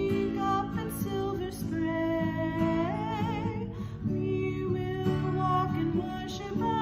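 Music: a singer holding long notes, with vibrato on one about three seconds in, over a plucked acoustic guitar.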